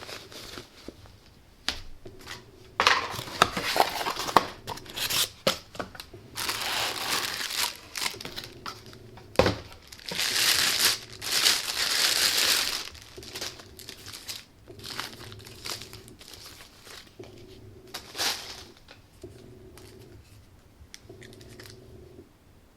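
Packaging being unwrapped and handled: crinkling and rustling of wrapping in several loud bursts, with small clicks and knocks between them, getting quieter toward the end.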